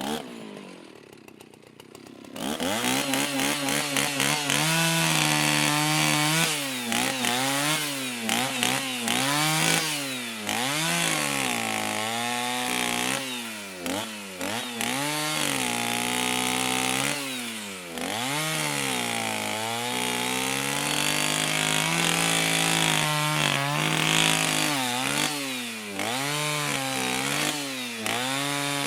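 Petrol chainsaw engine picking up about two seconds in, then revving up and down repeatedly, its pitch rising and falling every second or two.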